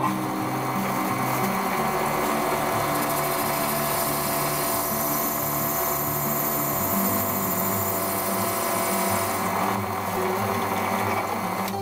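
Benchtop drill press running and its bit cutting a recess into a plastic block, a steady drilling whir that stops near the end.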